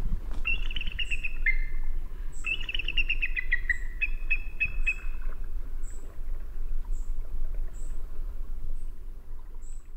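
Bald eagle calling: three bursts of rapid, descending chattering notes in the first half, with short high chirps recurring about once a second throughout, over a steady low rumble.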